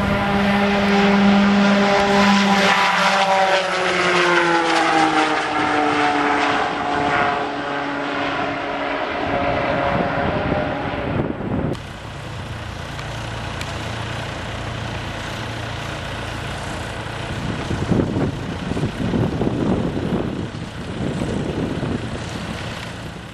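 Twin pusher-turboprop business plane passing on the runway, its propeller drone falling in pitch over the first several seconds. After a sudden cut about twelve seconds in, a quieter low engine hum, from an airport tow tug pulling a single-engine turboprop whose propeller is stopped.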